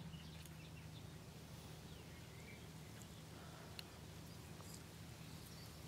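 Near silence: faint outdoor ambience with a low steady hum and a few faint, short bird chirps.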